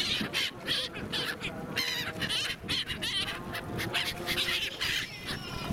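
A flock of migratory gulls calling, many overlapping harsh calls one after another as they crowd around for food.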